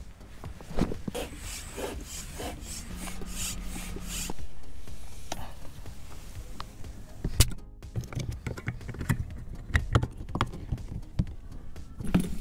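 Sea Eagle RazorLite inflatable kayak being handled and pumped up: the PVC hull rubs and rustles, a quick, even run of rasping strokes in the first few seconds, then scattered sharp clicks and knocks from the hose and valve fittings.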